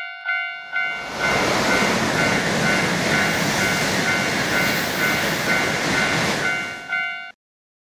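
Japanese railroad crossing warning bell ringing about twice a second. About a second in, the loud rushing noise of a Shinkansen passing through swells up over the bell and holds for about six seconds. Then everything cuts off suddenly.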